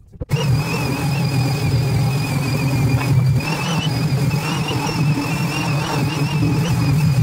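Electric hand sander running steadily on a black walnut table frame, a motor hum with a high, slightly wavering whine, starting abruptly just after the beginning.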